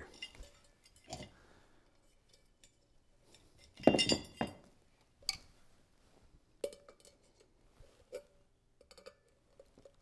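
Scattered metal clinks and knocks of pliers against a Hunter ceiling fan's down rod collar and set screw as the set screw is tightened, the loudest cluster about four seconds in.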